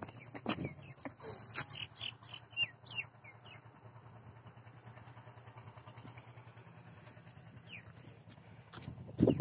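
Outdoor ambience: a steady low motor hum, with short bird chirps and a few sharp knocks in the first three seconds, and a loud burst of knocks near the end.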